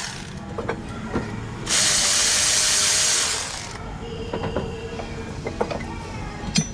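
A power tool runs in one burst of about two seconds, a loud even whirring hiss, with light clicks and knocks of metal parts being handled before and after it.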